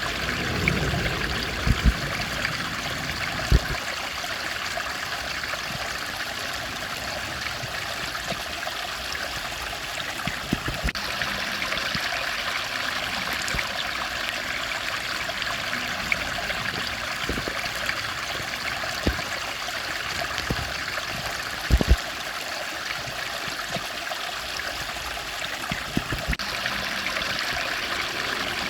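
Steady rush of a flowing stream, with a few brief soft knocks near the start and again about two-thirds of the way through.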